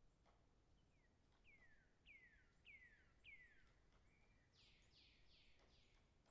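A songbird singing faintly: a run of about five clear whistles, each sliding down in pitch, followed near the end by a quicker series of four harsher, buzzier notes.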